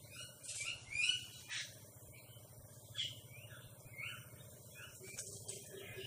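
Tailorbird chirping: a run of short, high chirps, bunched together about a second in and again from about three seconds in.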